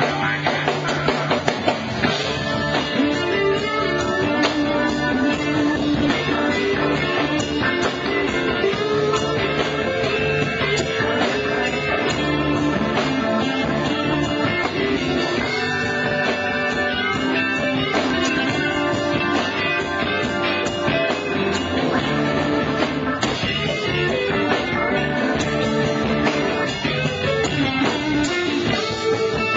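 Live blues-rock band: a Stratocaster-style electric guitar played loud over a drum kit, with no singing.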